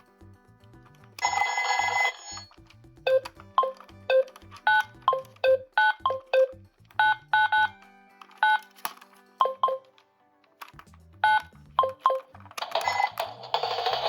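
A quick, uneven run of short electronic beeping tones over a low repeating pulse, like an electronic jingle or toy sound effects. A noisy rustle comes briefly early on and again near the end.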